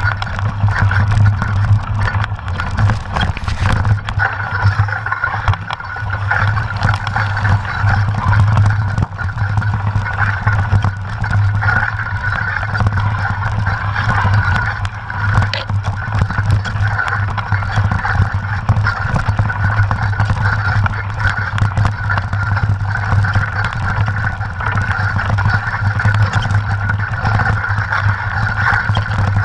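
Mountain bike riding over a rough dirt trail: a steady low hum with continuous rattling and knocking of the bike and tyres over the bumps.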